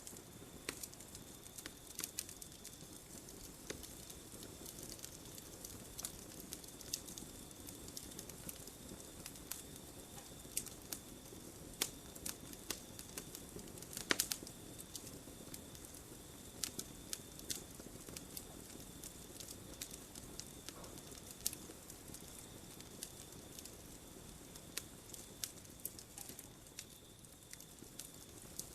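Wood campfire burning, with irregular sharp crackles and pops over a low steady rush of flame; a brief flurry of louder pops comes about halfway through. A faint steady high note runs in the background.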